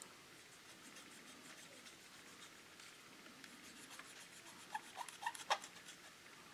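Faint scratchy rubbing of a cotton swab scrubbing along a paint edge on a plastic model car body, cleaning up the black paint line. A few small clicks come about five seconds in, one of them sharper.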